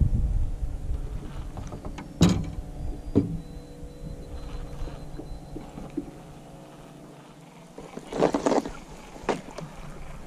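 Baitcasting reel being cranked during a retrieve from an aluminum boat, with a faint steady whir, broken by a few sharp knocks and a short clatter near the end.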